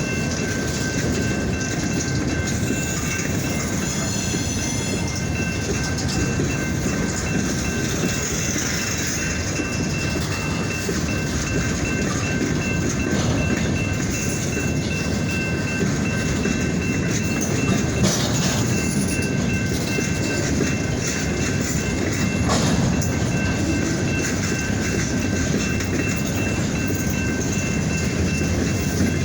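Freight train rolling on the rails: a steady rumble of wheels and cars, with two thin, steady high-pitched tones held throughout. A couple of brief clanks come about two thirds of the way through.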